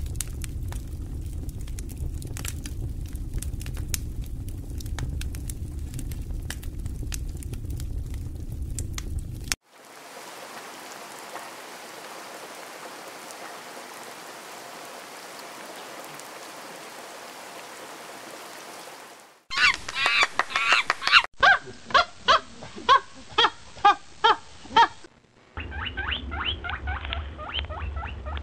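A run of separate nature sounds. It opens with dry leaf litter rustling and crackling over a low rumble, then a steady hiss for about ten seconds. About two-thirds of the way in come loud, repeated animal calls, about two a second, followed near the end by faster, quieter chattering calls.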